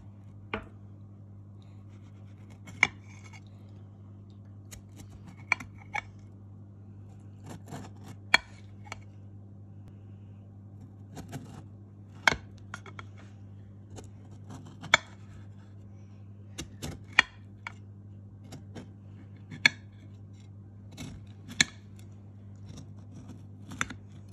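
Kitchen knife slicing through a firm chocolate biscuit cake, each cut ending in a sharp click of the blade against the ceramic serving plate, about every two to three seconds, over a steady low hum.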